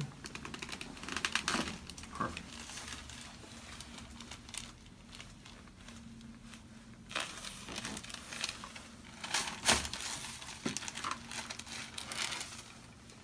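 Crinkling and rustling on a chiropractic treatment table as the patient is moved and positioned, with scattered sharp clicks; the loudest is a short snap about ten seconds in.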